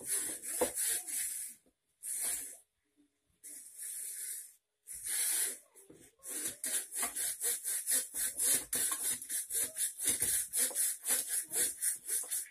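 Long wooden rolling pin rolling out stiff noodle dough on a flour-dusted wooden table: a dry, hissing rub in separate strokes at first, then from about halfway through a quick, even pulsing of about four to five strokes a second.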